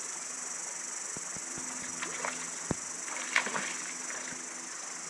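Steady, high-pitched chorus of cicadas, with a few short clicks and a louder brief burst about three and a half seconds in.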